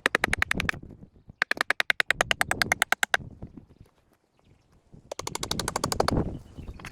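Rapid, evenly spaced mechanical clicking in three bursts, the longest about two seconds, in the middle.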